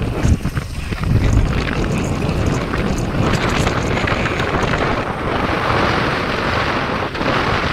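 Wind buffeting the microphone of a phone carried on a moving motorcycle: a loud, steady rush with a low rumble.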